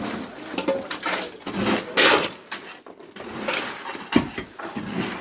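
Construction work sounds: irregular scraping and clattering, with a sharp knock about four seconds in.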